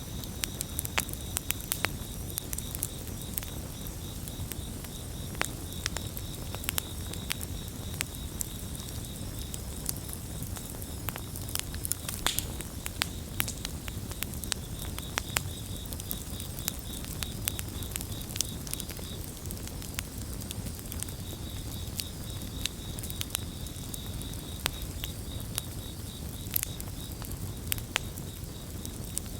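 Wood campfire crackling, with frequent sharp pops and snaps over a low, steady rumble of burning. Crickets chirp in a steady high-pitched pulse behind it, breaking off briefly a couple of times.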